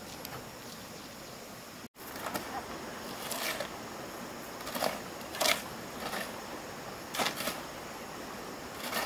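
A series of about six short, sharp scrapes, unevenly spaced, over a steady background hiss.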